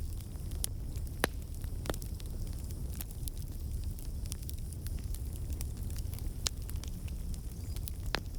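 Wood fire burning in a fireplace, with a steady low rumble of flames and scattered sharp pops and crackles, the loudest about a second in.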